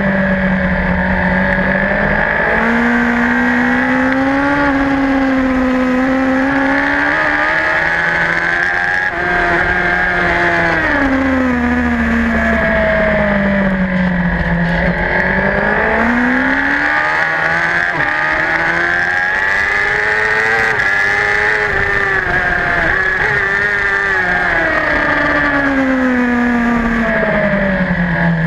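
Racing superbike engine heard from a camera mounted on the bike, running hard at high revs. Its pitch rises and falls repeatedly as the rider works the throttle through the corners.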